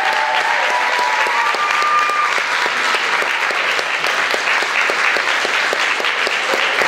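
Audience applauding steadily for the cast at a curtain call, with a few cheering voices over it in the first two seconds.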